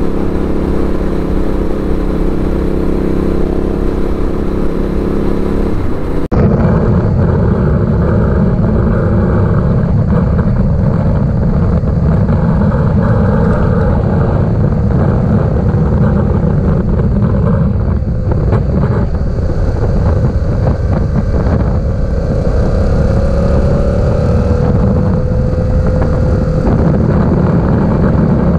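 Yamaha 689 cc parallel-twin motorcycle engine running steadily on the road, with wind rushing over the camera microphone. About six seconds in the sound changes abruptly to heavier wind noise over the engine, and near the end the engine pitch rises a little.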